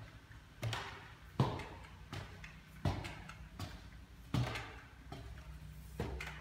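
Footsteps climbing open wooden stair treads, a short thud about every three-quarters of a second.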